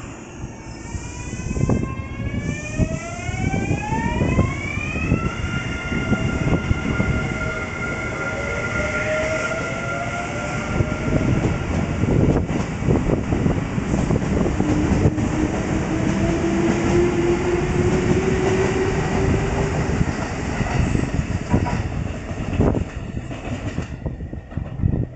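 Kintetsu 9020-series and 8600-series electric train pulling out and accelerating. The 9020's VVVF inverter gives a whine of several tones that rises in pitch for about five seconds, then holds steady. Motor hum and wheels clacking over rail joints follow as the cars pass.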